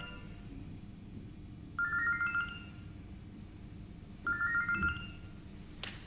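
Mobile phone ringtone: a short electronic trill of quick beeps stepping upward in pitch, heard twice, about two seconds in and again about four seconds in. A brief knock comes near the end.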